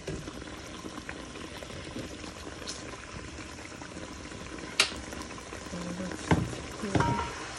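Chuck roast simmering and bubbling in its juices in a pan on the stove, with a few sharp knocks in the second half as a utensil strikes the pan while the meat is turned.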